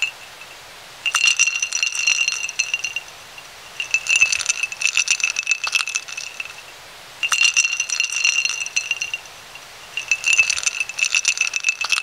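Ice cubes rattling and clinking in a drinking glass, in four bouts of about two seconds each, the glass ringing with each bout.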